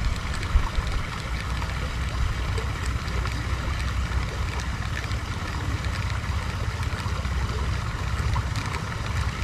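Steady low rumble of wind on the microphone over the even rush of flowing canal water.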